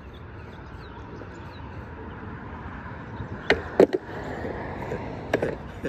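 Skateboard wheels rolling on the concrete of a skatepark bowl, a rushing noise that grows louder, with a few sharp clacks of the board hitting the concrete about three and a half seconds in, the loudest just before four seconds, and another near the end.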